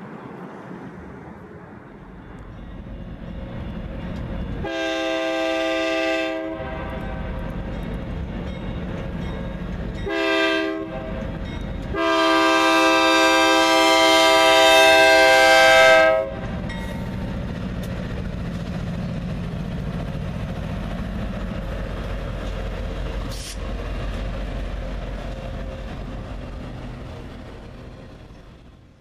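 Diesel freight locomotive horn sounded for a grade crossing: a blast of about a second and a half, a short one, then a long blast of about four seconds. Under it runs the steady rumble and wheel clatter of a passing freight train, which fades away near the end.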